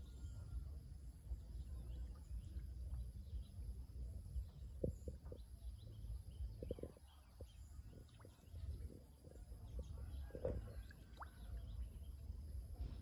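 Quiet pond-side outdoor ambience: a steady low rumble with scattered faint short sounds, the clearest a little before halfway and again near the end.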